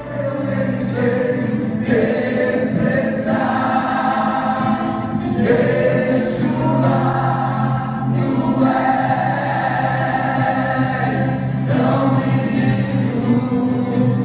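Background music: a choir singing sustained chords in a gospel or Christian style over a steady low accompaniment, the chords changing every second or two.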